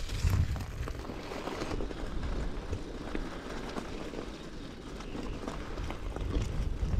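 Bicycle riding noise: a low wind rumble on the microphone with tyre noise on the path and small irregular rattles and clicks.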